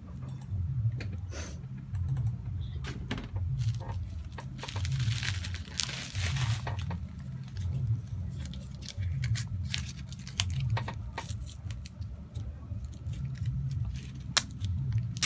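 A small parcel being handled and unwrapped: scattered clicks and rustles of packaging, with a longer tearing sound about five seconds in lasting about two seconds. A low hum pulses about once a second underneath.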